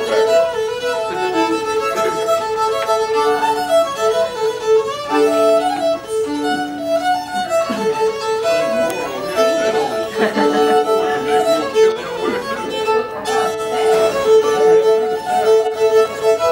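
Solo fiddle bowed through a tune, the melody moving over a single lower note held almost continuously in double stops.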